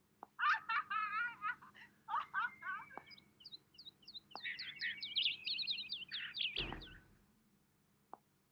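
Funny ringtone sound effect: high-pitched, squeaky giggle-like warbling that breaks into a fast run of chirps, ending with a short low thump about seven seconds in.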